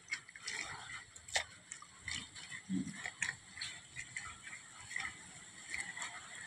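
Wet spider-flower greens being squeezed and stirred by hand in water in a plastic basin: irregular soft splashes, squelches and small clicks.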